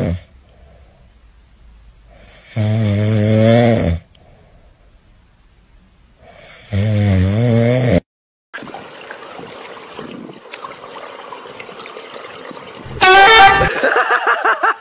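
A sleeping grey cat snoring: three loud, honking snores, each with a wobbling pitch, about four seconds apart. Then a steady hiss of spraying water, with a loud high cry near the end.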